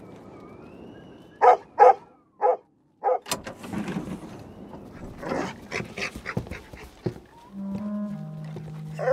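Large dog barking three times in quick succession, followed by a sharp knock and a spell of scattered knocks and shuffling. Low held music notes come in near the end.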